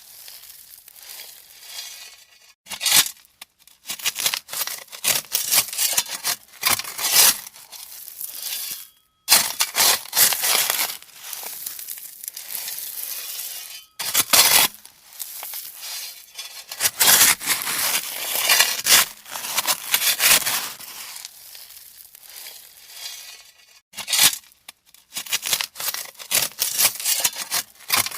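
A shovel digging into gravel: repeated scraping, crunching strokes of uneven length, with short pauses between them.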